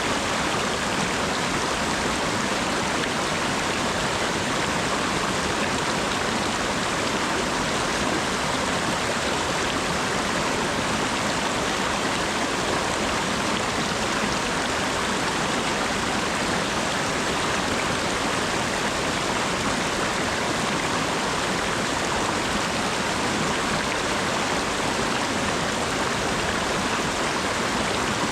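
Steady autumn rain falling, an even, unbroken hiss with no separate drops standing out.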